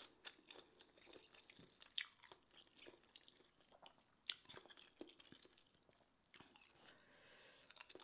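A person chewing a spicy seafood papaya salad with rice noodles: quiet, wet mouth sounds with scattered clicks, the two sharpest about two seconds in and about four seconds in.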